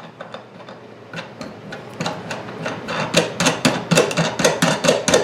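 Rapid, regular metallic clicking with a slight ring, sparse at first and then settling into about five clicks a second, from work on a wheel being set on a tire-changing stand.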